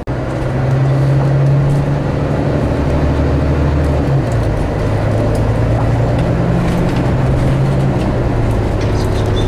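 A vehicle's engine running steadily, its low hum shifting in pitch about four seconds in, with general road-like noise over it.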